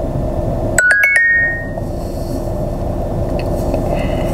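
A short electronic chime of four quick bell-like notes about a second in, over the steady hum of a car cabin.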